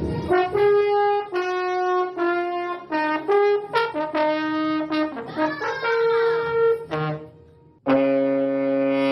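Brass instrument playing a quick run of short, separate notes at changing pitches, with a sliding, bending passage about five seconds in. After a brief break near the end, a loud long held note starts.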